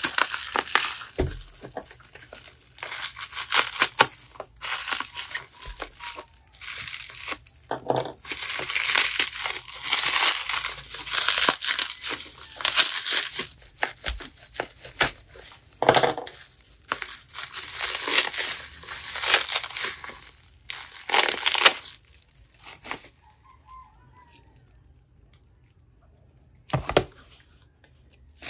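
Plastic bubble wrap crinkling and rustling in irregular bouts as hands pull it apart. It goes quiet for a few seconds near the end, then one short rustle.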